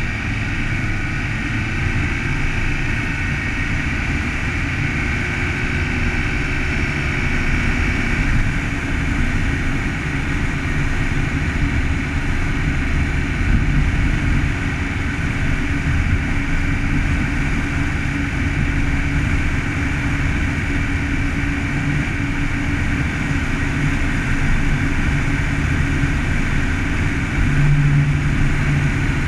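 Car driving steadily along a snowy road, with a continuous low rumble of engine and tyre noise.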